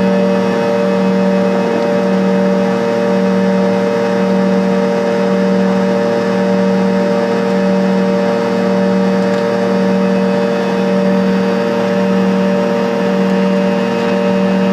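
Steady cabin drone of a Fokker 70 airliner in flight, from its rear-mounted Rolls-Royce Tay turbofan engines, heard from inside the cabin. A low hum throbs slowly and evenly under steady higher tones and rushing air noise.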